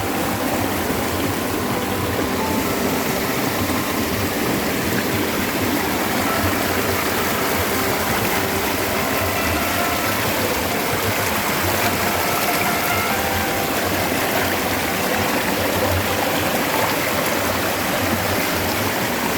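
Mountain stream water flowing and splashing over rocks, a steady rushing.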